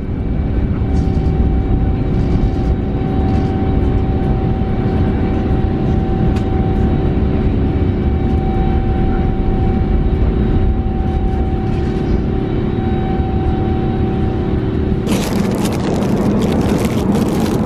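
Airbus A350-900 cabin noise while climbing after takeoff: the steady roar of the Rolls-Royce Trent XWB engines with a steady whine over it. About fifteen seconds in it cuts to close rustling and crackling handling noise.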